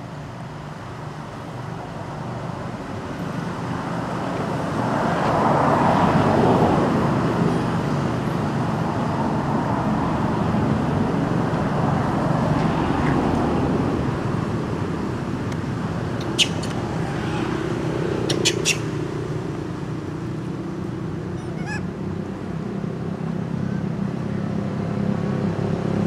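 Road traffic: a steady, noisy rumble of vehicles that swells about five seconds in and then holds, with a few sharp clicks around the middle.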